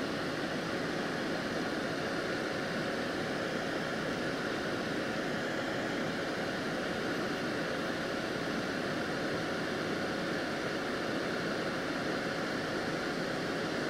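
Soldering exhaust fan running steadily: an even rushing noise with a faint steady hum in it.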